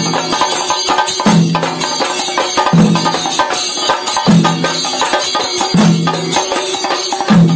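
Kerala temple percussion: chenda drums beaten with sticks in a dense, rolling rhythm, with a deep pitched beat that comes round about every one and a half seconds.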